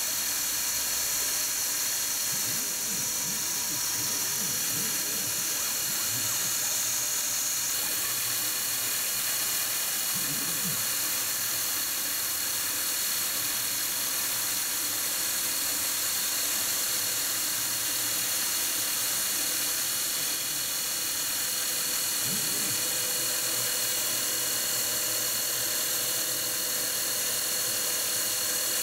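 Optimum milling machine spindle running steadily with a high whine while a chamfer mill cuts the sharp edges and hole rims of an aluminium plate, with a few faint squeals as the cutter works.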